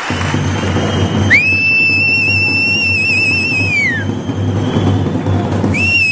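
A shrill whistle blown in two long blasts, the first about three seconds long starting about a second in, the second shorter near the end; each pitch wavers slightly and drops off at the end. Under it runs a loud continuous low rumble.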